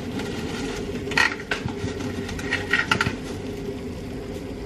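Dry fettuccine strands clicking and rattling as they are handled over a pot of boiling water: a few light clicks about a second in and again near three seconds, over a steady low hum.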